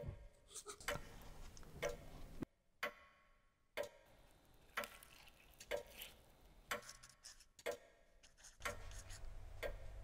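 Clock ticking, one tick about every second, with a low hum coming in near the end.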